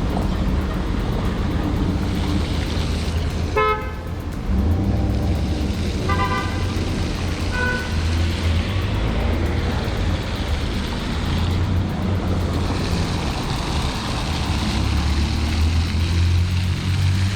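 Street background with a steady low rumble, broken by three short car horn toots: about four seconds in, around six seconds, and a brief one near eight seconds.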